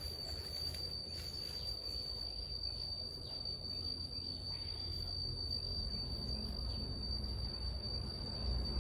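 An insect, cricket-like, calling in one steady unbroken high tone, over a low rumble.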